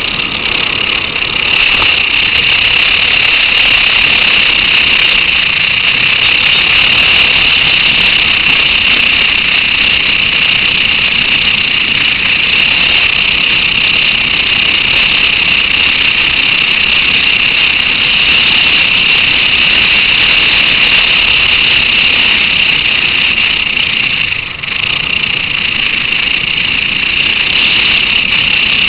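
Motorcycle riding at road speed: a steady, loud rush of wind and road noise dominated by a high hiss, with the engine underneath. It dips briefly about three-quarters of the way through.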